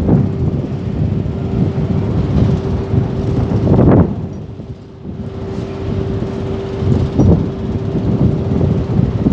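Diesel engines of lattice-boom crawler cranes running steadily during a tandem lift, with a low rumble and a steady hum. Wind buffets the microphone in gusts, loudest about four seconds in.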